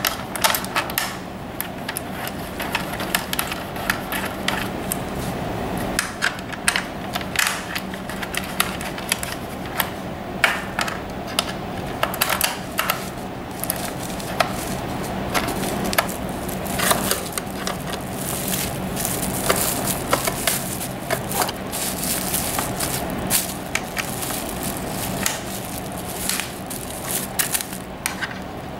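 Plastic bubble wrap crinkling and crackling as it is handled and pulled off a molded plastic part, in quick irregular clicks, over a steady low hum.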